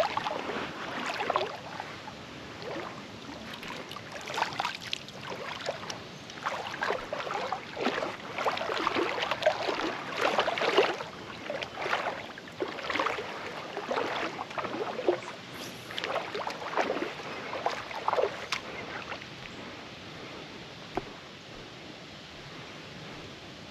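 River water sloshing and splashing in irregular strokes, about one a second, as someone wades through it; the splashing dies down to a quiet steady rush for the last few seconds.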